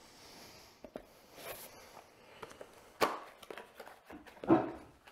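Footsteps, then hands handling a bundled power cable: light rustling, a sharp knock about three seconds in and a louder thud near the end.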